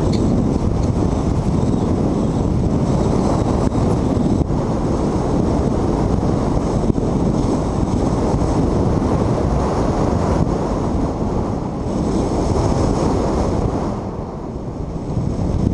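Wind rushing over a helmet-mounted GoPro's microphone in paraglider flight: a steady, rumbling buffeting noise that eases briefly near the end.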